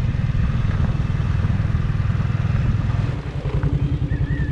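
Small motorcycle engine running while riding, a steady low chugging that drops a little in level about three seconds in, its pulses then more distinct.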